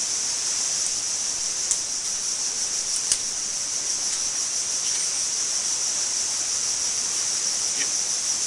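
A steady, high-pitched insect chorus that holds on one pitch throughout, with two brief clicks about two and three seconds in.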